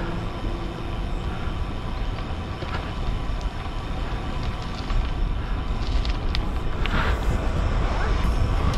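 Wind buffeting a bike-mounted camera's microphone on a fast road-bike descent, with tyre rumble on rough, patched tarmac. It grows louder in the second half as speed builds, with a few sharp clicks or knocks near the end.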